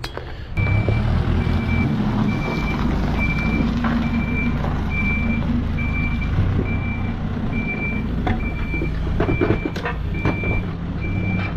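Backhoe loader running, its diesel engine a steady low drone under a reversing alarm that beeps on one pitch about three times every two seconds. A few short knocks sound near the end.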